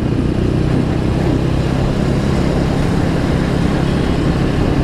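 Motorcycle engine running steadily as the bike cruises along at an even speed, under a constant rush of wind and road noise.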